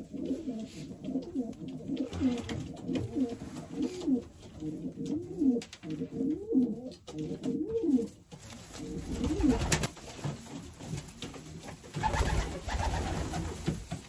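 Racing pigeons cooing: a steady run of repeated coos, each rising and falling in pitch, for about eight seconds, then stopping. Near the end there are short rustles of handling.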